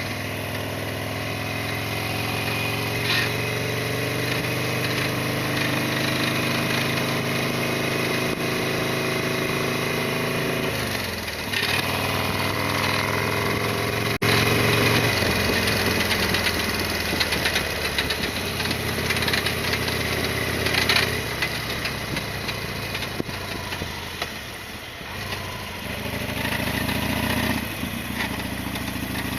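Harley-Davidson Sportster XL1200R's air-cooled V-twin engine running while the motorcycle is ridden, its pitch dropping as the bike slows a little before halfway, then picking up again.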